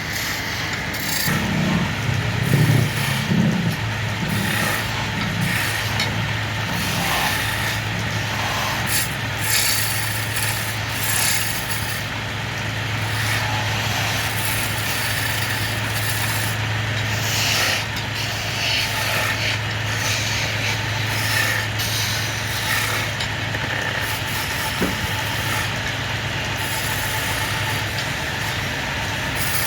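Wood lathe running with a steady motor hum while a turning tool scrapes and cuts the spinning wood. The rough cutting noise comes and goes over the hum.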